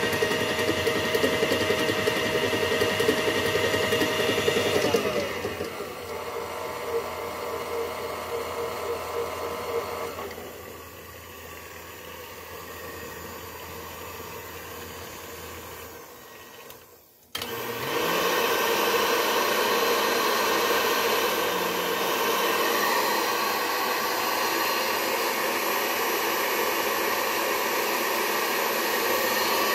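KitchenAid stand mixer motor running with a steady whine, stepping down in speed about five seconds in and again about ten seconds in, then dying away almost to silence. About seventeen seconds in a mixer starts up again and runs steadily, louder than before.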